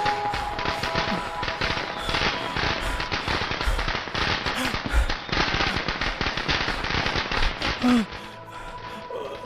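Rapid, dense bursts of gunfire-like cracks over a steady musical drone, cutting off suddenly about eight seconds in and leaving only the music.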